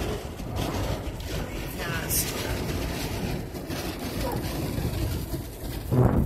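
Steady wind and road noise inside a moving car's cabin in high winds, with a brief louder sound near the end.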